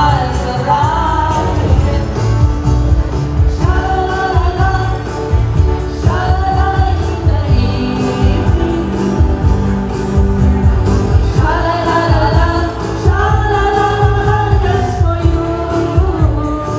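Three women singing together into microphones in sung phrases with short pauses between them, backed live by an acoustic guitar, a Casio keyboard and an electric guitar over a steady beat.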